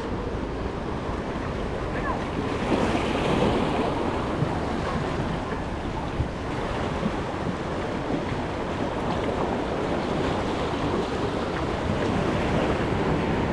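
Small sea waves washing steadily onto a sandy beach, with a louder surge of surf about three seconds in and wind buffeting the microphone.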